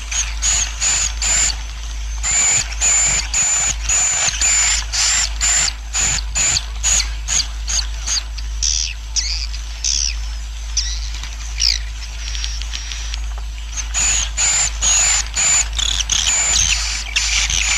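A colony of swiftlets twittering: dense, rapid high chirps and trills in repeated bursts, thinning out for a few seconds in the middle. This is the swiftlets' roosting call ('suara inap'), over a steady low hum.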